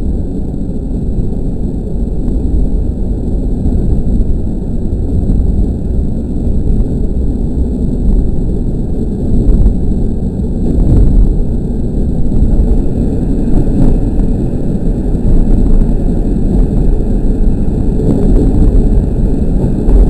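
KiHa 40 diesel railcar under way, its engine and wheels on the rails heard from inside the car as a steady low rumble. It grows somewhat louder in the second half as the railcar runs into a tunnel.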